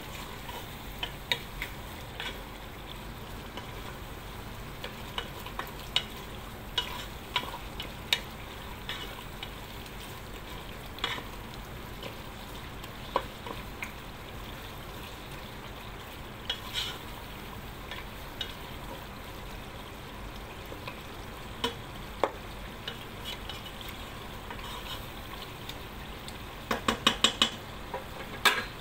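Wooden spatula stirring and scraping chicken, vegetables and spices in a nonstick pot while the food fries and sizzles, with scattered clicks of the spatula against the pot. A quick run of clicks comes near the end.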